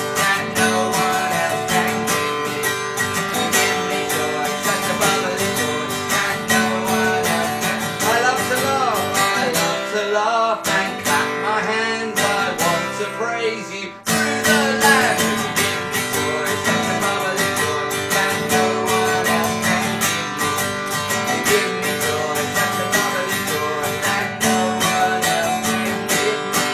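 Yamaha cutaway acoustic guitar strummed steadily, with voices singing a lively children's action song over it; the playing breaks off briefly about halfway, then carries on.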